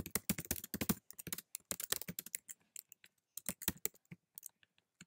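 Typing on a computer keyboard: quick, irregular runs of key clicks with short pauses in between.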